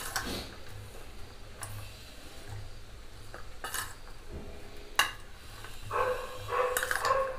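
Metal spoon clinking and scraping against a stainless steel bowl while stirring a moist peanut salad, in a few separate knocks. Near the end there is a faint pitched sound in the background.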